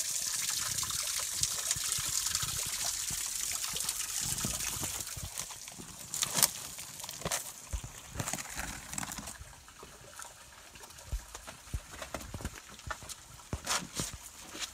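Water trickling and splashing among boulders from a small spring-fed waterfall, steady for the first five seconds or so and then fading. After that come scattered scuffs and knocks of feet and hands on rock as people climb over boulders, the loudest a sharp knock about six seconds in.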